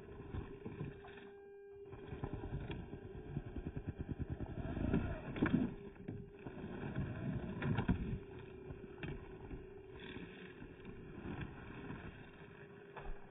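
Traxxas TRX-4M 1/18-scale RC crawler's small electric motor and gears whining steadily as it crawls over rocks, dropping out briefly about a second and a half in. Its tyres crunch and scrabble on stone and gravel, loudest about halfway through.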